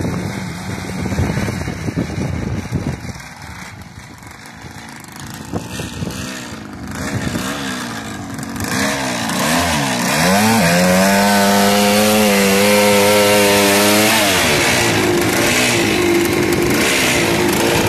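Suzuki RM 250 two-stroke motocross bike engine. It is fainter and uneven at first. Its revs climb from about eight seconds in, are held high and steady for about four seconds, then drop back to a lower, still loud running.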